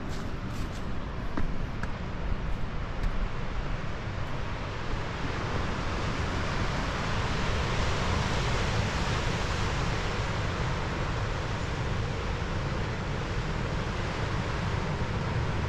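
Wind on the microphone with surf washing on the rocky shore, growing louder about five seconds in and then holding steady.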